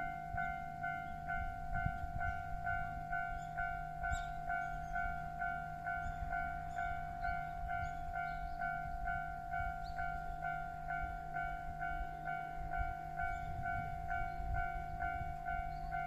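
Japanese level crossing warning bell ringing in an even two-tone clang, about two strokes a second, over a low rumble.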